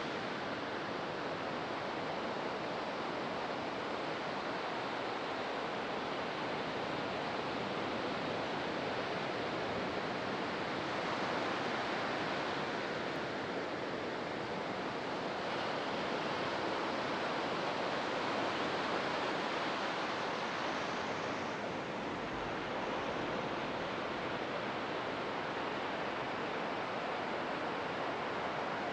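Ocean surf washing onto a beach: a steady hiss of breaking waves that swells and eases gently.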